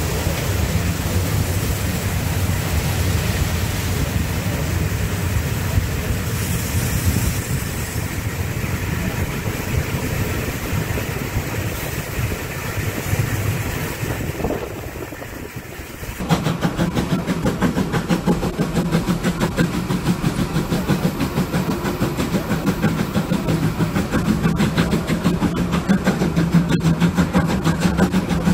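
A steam train heard from an open carriage window: the locomotive working and the carriages rolling. About halfway through the sound changes abruptly to a louder, faster, even beat of exhaust strokes as the train gathers speed.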